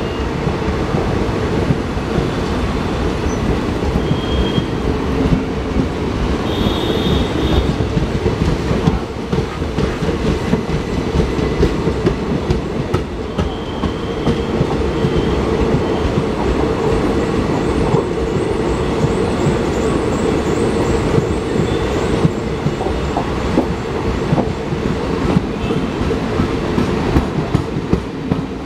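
Indian Railways ICF passenger coaches of a loco-hauled express rolling past close by: a steady rumble of steel wheels on the rails with clickety-clack over the rail joints. Brief high wheel squeals come a few times.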